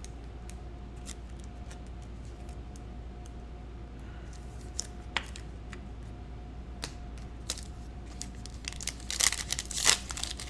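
Foil wrapper of a Panini Prizm football card pack being torn open and crinkled: a few scattered faint clicks, then a dense run of loud crackling in the last two seconds. A faint steady hum underneath.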